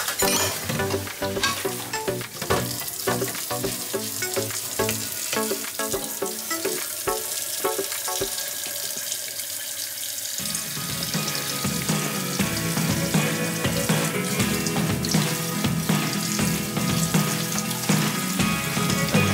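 Water running from a kitchen faucet into a stainless steel sink and a pot as it is washed, under background music.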